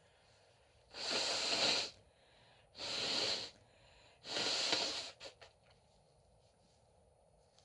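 A woman sneezing three times in quick succession, each sneeze a breathy, hissing burst about a second long, followed by a few faint clicks.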